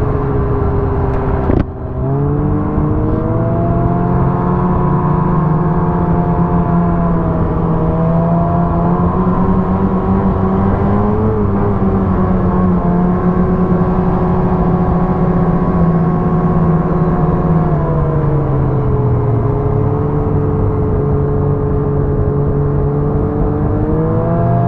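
Ski-Doo snowmobile engine running under throttle, heard from the rider's seat. Its note cuts out for a moment about two seconds in, then climbs and holds, eases off and climbs again a few times, drops to a lower steady note about three-quarters through and rises again near the end.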